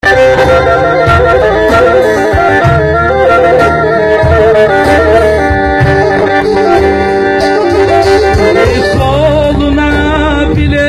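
Amplified Black Sea Turkish folk music in an instrumental break between sung verses: a melody over a steady low beat.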